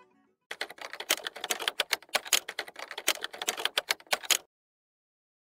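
Typewriter sound effect: a rapid, uneven run of key clacks starting about half a second in and cutting off suddenly after about four seconds.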